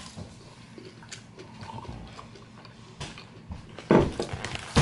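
Eating by hand at a plate: soft chewing and small ticks, with a louder knock about four seconds in and another sharp click near the end, as the hand goes back to the plate.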